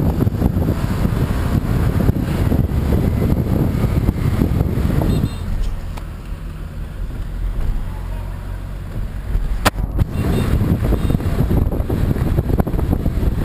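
Scooter ride with heavy wind rumble on the bike-mounted microphone and the motor running. About five seconds in the rumble drops away, leaving the engine's steady low running, with a sharp click near the end of the lull; then the wind rumble returns as the scooter moves off again.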